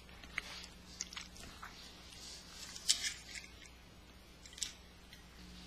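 Faint, scattered small clicks and scrapes of a hex nut being turned by hand along a threaded bolt, the sharpest click about three seconds in, over a faint steady hum.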